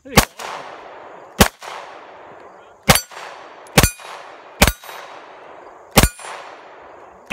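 9mm pistol shots from a homemade Glock 19 with a wooden frame, fired one by one at an uneven pace about a second apart: six shots, with a seventh right at the end. Each shot is followed by a long fading echo.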